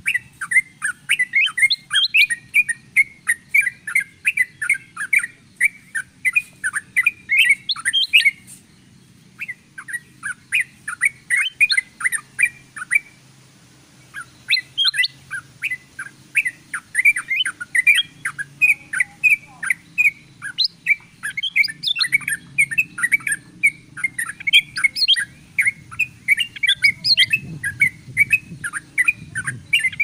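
Bird-lure recording of yellow-vented bulbuls combined with ruby-throated bulbuls: a dense, fast run of chirps and chatter that pauses briefly about 8 and 13 seconds in.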